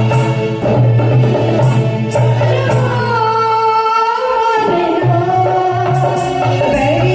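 Music from a song, with a steady bass and a hand-drum beat. About three seconds in, the beat drops out for a moment under a long, wavering melody line, then comes back.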